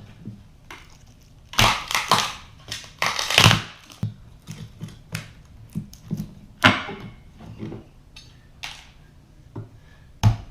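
Hand demolition of old layered flooring: irregular knocks, scraping and crunching as the layers are broken and pried up, with the loudest bursts about two to three and a half seconds in and again near seven seconds.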